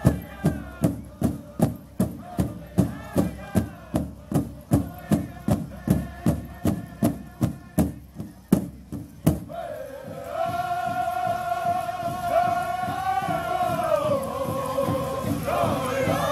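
Powwow drum group: a big drum struck in a steady beat of about two and a half strokes a second under men's group singing. About nine and a half seconds in the drum stops and the singers carry on alone in a high, held chant.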